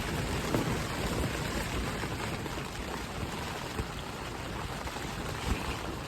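Steady rain falling, with scattered individual drops ticking.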